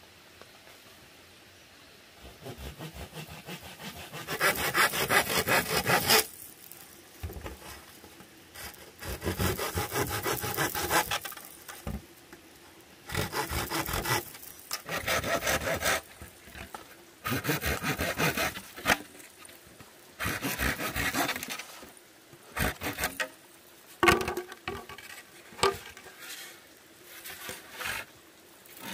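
Hand saw cutting through green bamboo poles in repeated spells of quick back-and-forth strokes, with short pauses between cuts and a few knocks of bamboo in between.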